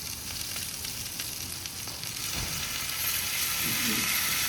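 Hot sizzler plate of vegetables, paneer and rice sizzling steadily, the sizzle growing louder about three seconds in as garlic sauce goes onto the hot plate.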